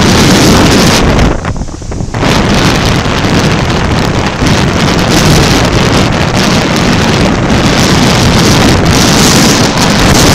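Strong wind buffeting the camera microphone over heavy surf breaking on the beach. The wind drops briefly about one and a half seconds in, then gusts again.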